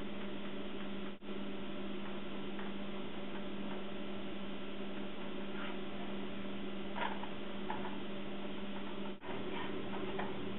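A steady electrical hum under the faint sizzle of a pancake frying in oil in a stainless steel pan. Light scrapes of a spatula on the pan come in the second half, as the pancake is flipped.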